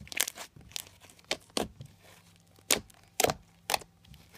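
Clear glitter slime being squeezed and poked by hand, making a series of sharp, irregular clicking pops, about half a dozen in all.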